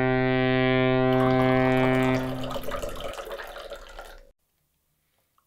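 A held low musical note, perfectly steady, sounds for about two and a half seconds and then fades away. Under it and after it comes the splashing hiss of tea being poured from a metal teapot into a small glass. The sound cuts off abruptly about four seconds in.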